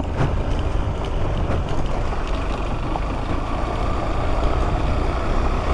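KTM 390 Adventure motorcycle's single-cylinder engine running steadily while the bike is ridden.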